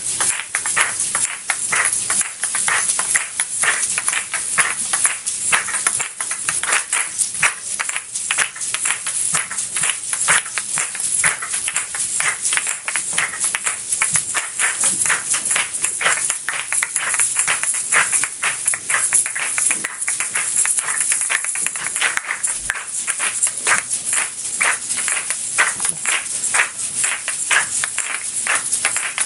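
Several asalatos (kashaka), pairs of seed-filled shell shakers joined by a cord, played together: the balls clack against each other and rattle in a fast, continuous rhythm.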